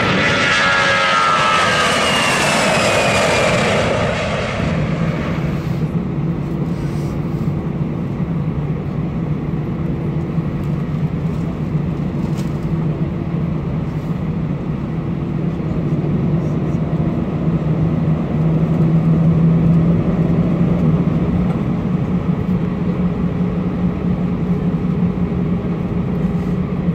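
A whoosh that falls in pitch for the first four seconds or so. Then the steady low hum of an Airbus A320-214's CFM56 engines, heard from inside the cabin over the wing as the jet taxis at low power. It swells a little past the middle.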